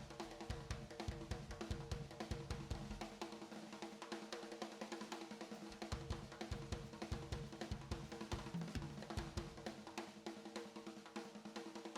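Rock music with a driving drum kit: snare, bass drum, hi-hat and cymbals keeping a steady beat, with a steady pitched hum underneath.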